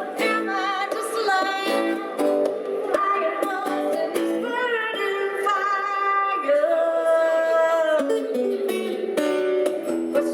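A woman singing with vibrato over a plucked acoustic guitar, a busker's song.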